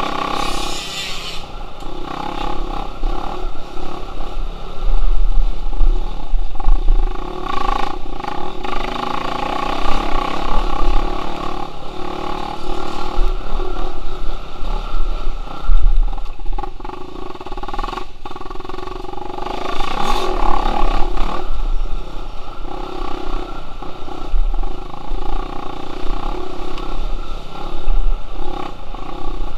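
Dirt bike engine running and revving up and down as the bike rides a bumpy trail, with wind rumbling on the bike-mounted microphone.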